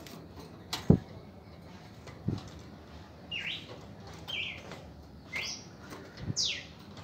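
Caged red-crested cardinals: wing flaps and sharp thumps as a bird flies about and lands on the cage wire, the loudest about a second in. From about halfway on come four short calls roughly a second apart, each falling in pitch.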